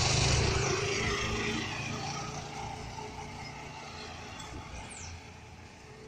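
Three-wheeled motorcycle taxi (mototaxi) driving past on the street, its engine hum and road noise loudest about the start and fading steadily as it moves away.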